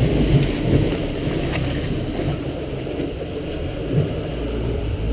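Steady low drone of an aluminum boat's fuel-injected motor and hull running through water, heard inside the cabin, with a few short knocks, the clearest about four seconds in.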